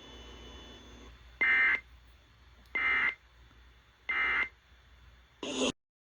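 Three short bursts of Emergency Alert System data tones, the end-of-message signal that closes an alert, evenly spaced about a second and a half apart over a faint radio hum. A brief burst of sound follows, then the audio cuts off abruptly.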